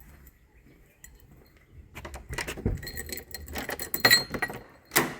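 A bunch of keys jingling and clicking against a door lock as it is unlocked. After about two quiet seconds come a run of sharp metallic clicks and clinks, with a loud click near the end.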